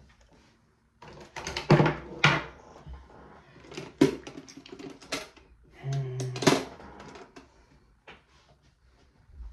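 Irregular run of sharp clicks and clatters from small hard makeup containers being handled and rummaged through, busiest in the middle and thinning out near the end.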